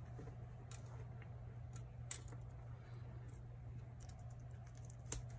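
Faint ticks and light rustles of designer paper being handled and pressed flat on a tabletop, over a steady low hum.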